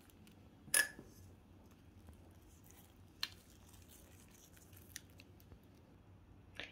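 Nigella and sesame seeds being sprinkled by hand over egg-washed dough in a baking tray: faint light ticks, with a sharp click a little under a second in and another about three seconds in.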